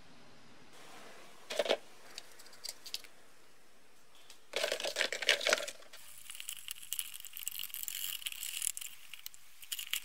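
A small brush scrubbing the rusty metal body of an old carbide bicycle lamp inside a plastic bucket, a dense scratchy rasp through the second half. Before it come a brief sharp clatter and then a longer rattle of parts being handled.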